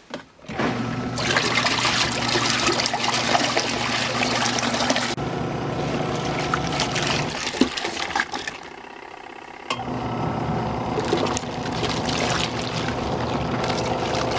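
Portable twin-tub washing machine's wash tub running: a steady motor hum with water churning. It stops for about two seconds near the middle and then starts again, as the wash cycle pauses and reverses.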